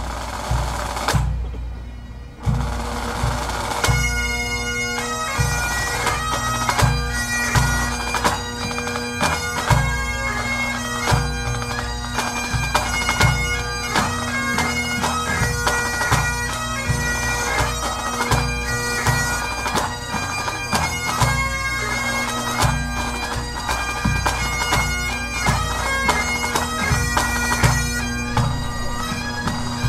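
Pipe band of highland bagpipes with snare, tenor and bass drums striking up: drum rolls open it, the pipe drones come in at about two and a half seconds, and the chanters take up the tune a second or so later over steady drumming.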